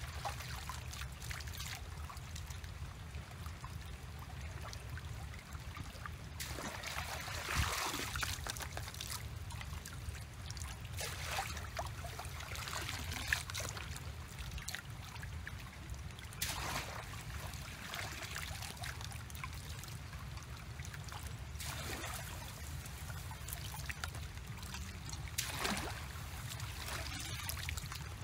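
Shallow stream water splashing and trickling as someone wades and dips a woven bamboo basket, in surges every few seconds over a steady low rumble.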